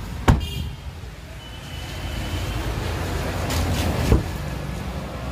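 A car door being shut with a single sharp thump about a third of a second in, then another knock about four seconds in as a hand reaches a car door's handle. A steady low rumble of traffic runs underneath.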